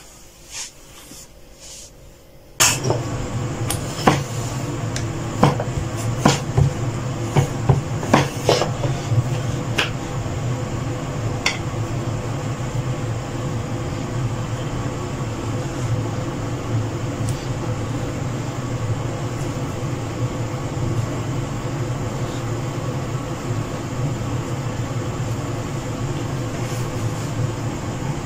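A steady humming whir from a fan or motor comes on abruptly about two and a half seconds in and keeps running. Over its first several seconds come a scatter of sharp knocks and clicks from dough and utensils being handled on a wooden cutting board.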